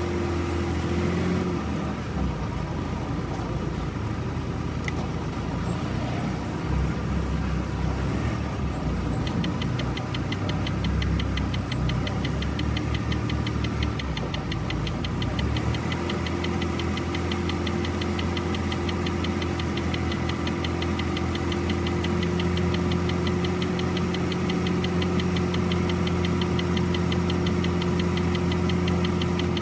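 Semi truck's diesel engine running while driving, heard from inside the cab. The engine's steady drone fades about two seconds in and comes back strongly around sixteen seconds, and a fast, even ticking joins about nine seconds in.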